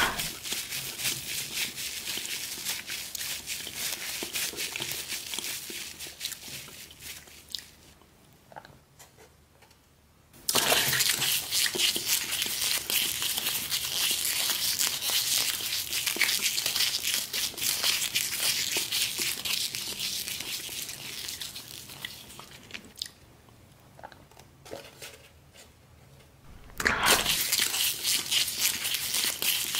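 Close-up crinkling and crackling of a paper towel and foam tray heaped with small red chilli peppers as they are handled. It comes in three stretches, with a quiet pause of a couple of seconds about a third of the way in and another near the end.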